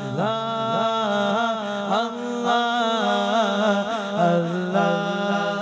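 Devotional naat singing: a voice chants "Allah" twice in long, ornamented melodic phrases over a steady low drone.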